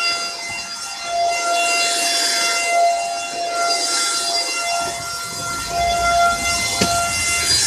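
Dirt Devil Powerstick stick vacuum running: a steady high motor whine over rushing air hiss. A low rumble comes in from about five seconds in, with a sharp knock near the end.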